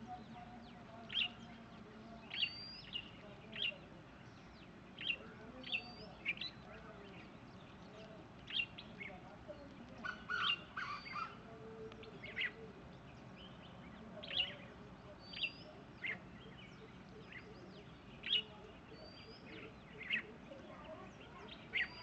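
Red-whiskered bulbul calling in short, sharp, whistled notes, one every second or so. About ten seconds in, a quick run of lower, clipped notes from a grey junglefowl joins in.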